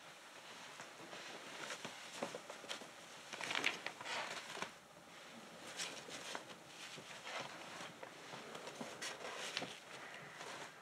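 Faint rustling and crinkling of paper being handled, with scattered small clicks and a denser crinkle about three and a half seconds in.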